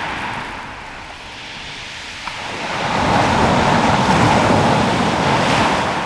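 Surf on a shingle beach: a wave rushes in, quieter at first, then swelling louder from about halfway through.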